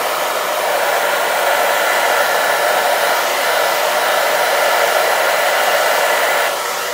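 Handheld hair dryer running steadily on wet acrylic paint on a canvas: an even rush of air with a faint motor whine, easing a little near the end.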